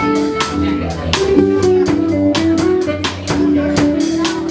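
Band music: guitar notes over a drum kit keeping a steady beat of about three strokes a second.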